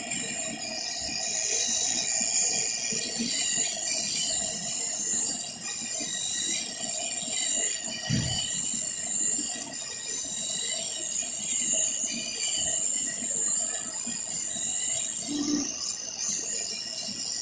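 CNC knife cutting machine running as it cuts leather: a steady high-pitched whine with a rough low rumble underneath, and a brief low thump about eight seconds in.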